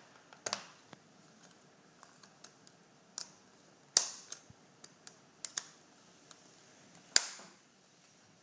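Sharp plastic clicks and snaps from a hard plastic waterproof phone case as its lid is pressed shut and latched, with the two loudest snaps about four seconds in and about seven seconds in.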